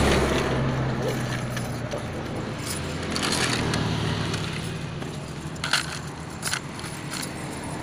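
Metal ring chain on the weighted edge of a cast net clinking and jangling as it is lifted and shaken out, in several short clusters of clinks. A low steady engine hum runs underneath, strongest in the first second.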